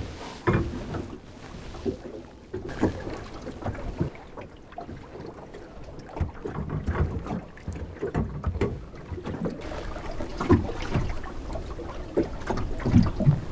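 Choppy water slapping and lapping against the hull of a small wooden boat at anchor in a running tide, with wind on the microphone and irregular knocks and bumps.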